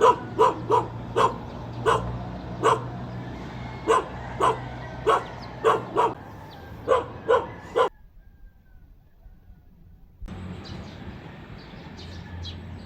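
A dog barking repeatedly, about two barks a second. The barking cuts off abruptly about eight seconds in, and a low steady background noise returns a couple of seconds later.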